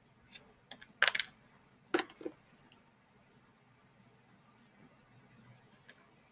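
Small plastic slime tub being opened by hand: a few sharp plastic clicks and crackles, loudest about a second in and again about two seconds in, followed by faint scattered ticks as the container and slime are handled.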